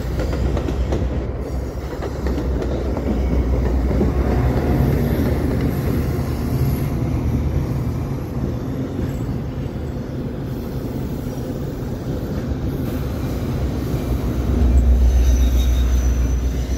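Metra stainless-steel bilevel gallery commuter cars rolling slowly past on jointed yard track, a steady rumble of wheels on rail. Near the end the low diesel rumble grows louder as the pushing EMD F40PH-series locomotive passes close by.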